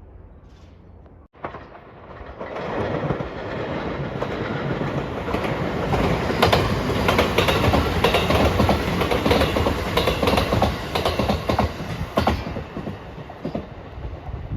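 Passenger train passing close by: it builds up, then runs past loudly with a quick run of wheel clacks over the rail joints. It drops off sharply near the end as the last car clears.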